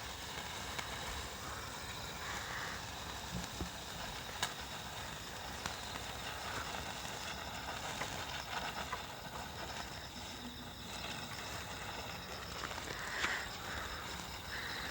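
Handheld firework burning, giving a steady hiss with scattered small crackles and pops.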